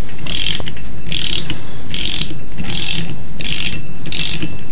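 Socket ratchet clicking in six short bursts, a little under a second apart, as it is worked back and forth to run the loosened flywheel nut off the 60cc Suzuki two-stroke engine's crankshaft.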